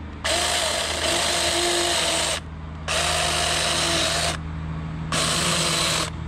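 Taranzy mini cordless chainsaw's electric motor running in three short bursts, each one to two seconds long, with a steady whine as the chain cuts into a pumpkin.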